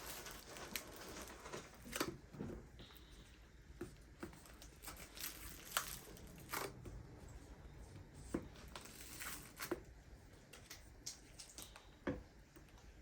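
Homemade slime being kneaded and stretched by hand, giving scattered faint sticky clicks and squishes.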